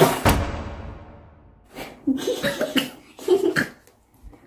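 A woman coughs sharply once, then makes a few short vocal sounds.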